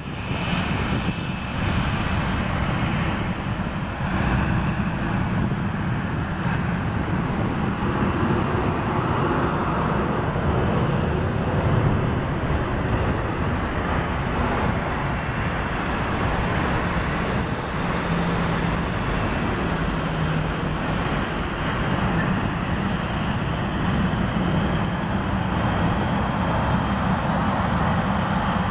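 Boeing 737 twin jet engines running at low taxi thrust, a steady whine and rumble as the airliner taxis and turns around on the runway.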